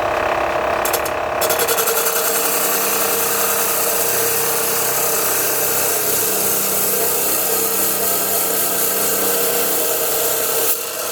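Metal cutting saw with a 40 cm blade and a 3 HP motor running at speed, cutting into steel with a steady loud grinding hiss from about a second and a half in. The cutting stops near the end.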